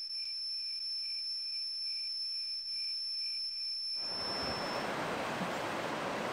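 A steady high-pitched whine with a softer tone pulsing about twice a second beneath it. About four seconds in it gives way abruptly to wind rushing on the microphone, and the whine fades out.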